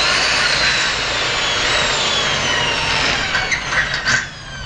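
Corded electric hammer drill running under load. Its motor whine rises as it starts, holds steady, then stops about four seconds in after a few short bursts.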